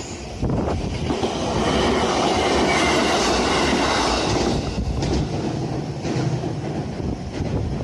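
Iida Line electric train passing over a level crossing: a loud rush of running noise that swells about half a second in and eases after about four seconds, followed by a run of wheel clicks over the rail joints.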